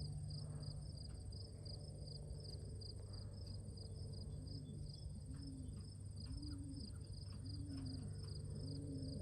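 Crickets chirping steadily, about three chirps a second, over a constant high insect trill. From about halfway through, a pigeon cooing in a run of low coos about once a second.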